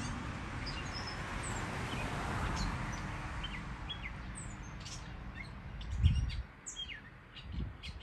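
Northern mockingbird singing: a string of short, varied chirps and whistled notes, some sliding up or down in pitch, coming more thickly in the second half, over a steady background hiss. A low thump about six seconds in.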